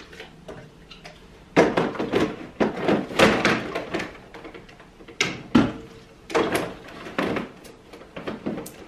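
Plastic pouches of dishwasher tablets being handled, with the packaging crinkling and rustling in irregular bursts and a few sharp knocks as a pouch is set down on the worktop.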